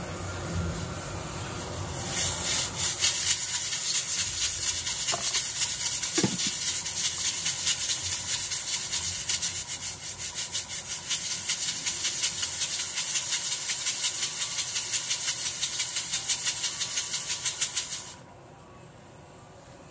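Rhythmic scraping made of many quick, hissy strokes. It starts about two seconds in and cuts off abruptly near the end.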